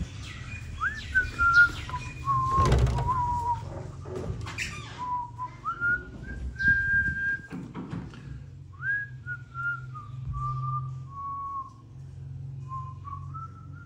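A man whistling a slow tune, one clear note at a time with the pitch stepping up and down and sliding between notes. A loud thud comes a little under three seconds in.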